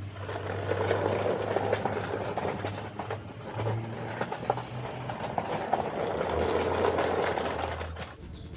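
Mechanic's creeper rolling on its small casters across a concrete driveway, a rough rumbling with scattered clicks that stops about 8 seconds in, over a steady low hum.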